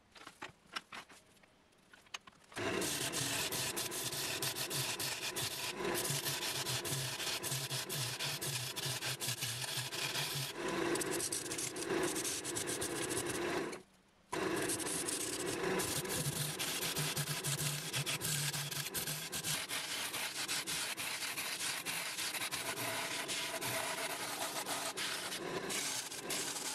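Abrasive sanding against a pine and epoxy-resin bowl spinning on a wood lathe: a dense, scratchy hiss over a steady low hum. It starts about two and a half seconds in and drops out briefly about halfway through.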